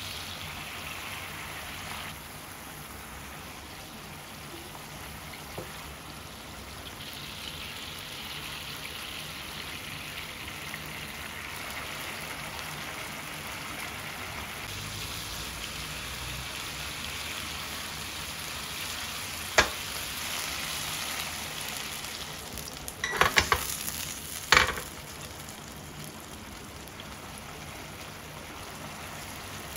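Red wine sauce with mushrooms and chicken breasts sizzling and simmering in a frying pan, a steady hiss. About two-thirds of the way through come a sharp click and then a brief cluster of sharp taps, the loudest sounds.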